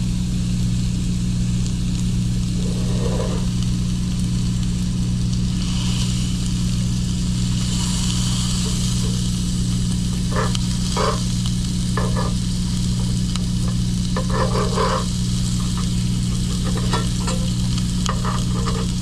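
Bacon beginning to sizzle in a cast-iron skillet, the hiss growing stronger about a third of the way in. Metal tongs and a spatula scrape and click against the pan several times in the second half as the slab of strips is pried apart, over a steady low hum.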